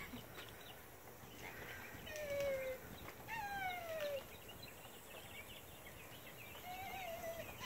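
A high-pitched voice making three faint, drawn-out falling calls, about two, three and seven seconds in.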